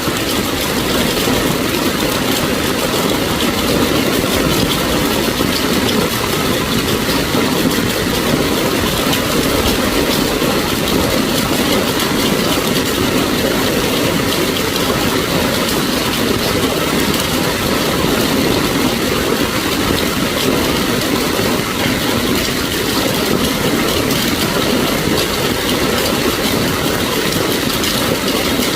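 Steady noise of heavy rain and vehicle engines running in slow traffic on a flooded street.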